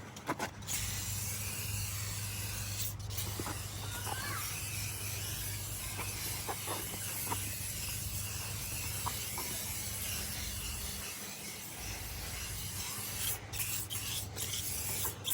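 Aerosol can of tire shine spraying in a long, nearly continuous hiss, broken by short pauses about three seconds in and near the end.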